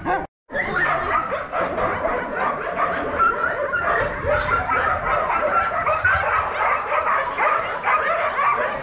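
Many dogs barking and yelping at once, a dense din of overlapping barks that cuts out only briefly just after the start.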